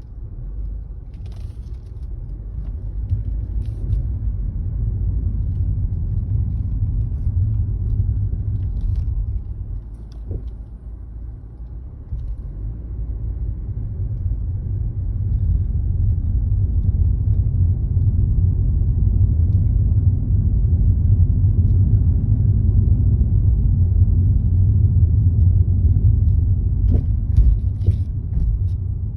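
BMW G30 driving with steady low road noise, and short suspension knocks heard now and then, a few together near the end. The knocking comes from a worn left longitudinal link.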